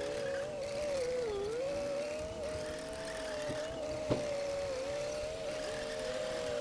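Heavy earthmoving machinery running with a whine whose pitch wavers up and down, with one sharp click about four seconds in.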